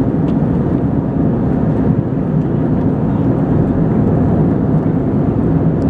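Steady cabin noise inside an Airbus A320-214 airliner in flight: an even, low rush of airflow and engine noise that does not change.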